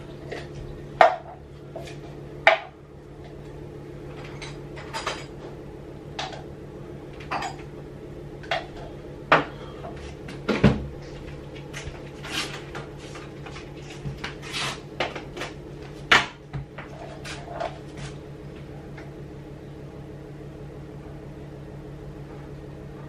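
Kitchen clatter: dishes, cutlery and cupboard doors being handled, a string of sharp clinks and knocks that stops about eighteen seconds in, leaving a steady low hum.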